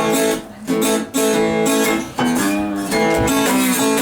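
Acoustic guitar strummed and picked in a blues accompaniment, with brief breaks between chords about half a second and two seconds in.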